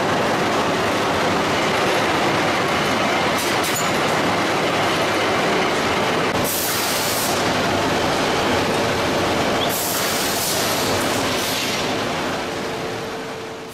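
Hot steel rolling mill running: a steady, dense clatter and rumble of glowing bar travelling through the roll stands and along the roller troughs, with two short bursts of hiss about halfway through and a few seconds later. The din fades away near the end.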